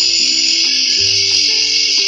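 Angle grinder grinding a steel fan shaft: a steady high-pitched grinding noise, with background music playing a stepping melody underneath.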